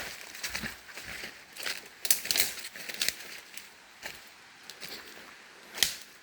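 Footsteps crunching and crackling through dry leaves and brush on a trail, in irregular steps with a sharp crack about two seconds in and another near the end.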